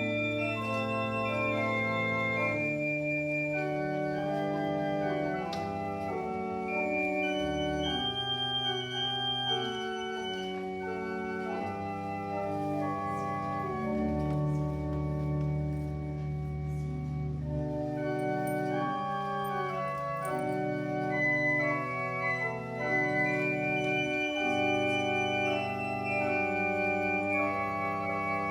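Church organ playing slow music in long held chords over a low bass line, the chords changing every few seconds.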